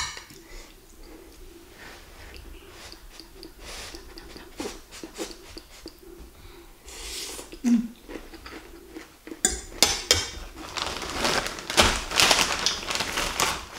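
Fork and spoon clicking and scraping on a plate between mouthfuls. From about nine and a half seconds in, a plastic bag of crackers crinkles louder as a hand rummages in it.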